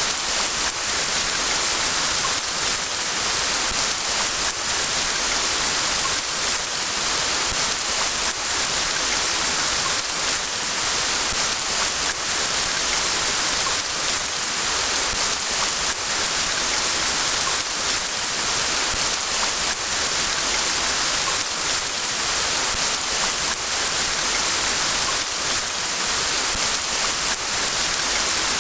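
Steady rain: an even hiss with many fine drop hits, strongest in the high range, unchanging throughout.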